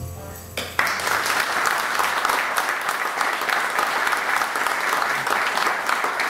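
The ensemble's last notes die away, then an audience breaks into applause under a second in and keeps clapping steadily.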